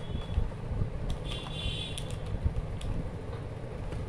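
Handling of wrapped chocolate bars in a plastic tray: faint taps and wrapper rustles over a steady low rumble, with a brief high squeak between one and two seconds in.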